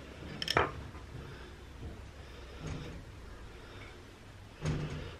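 Two brief knocks: a sharp one about half a second in and a duller one near the end, with faint handling noise between.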